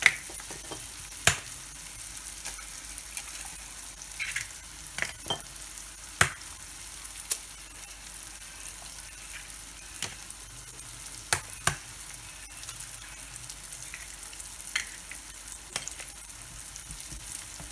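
Eggs frying in hot oil in a pan on top of fried onions and spices: a steady sizzling hiss. Sharp clicks and knocks come every few seconds.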